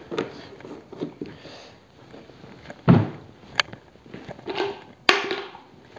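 Footsteps on paving stones and handling of a plastic fuel canister. There is a thump about three seconds in and sharp knocks later.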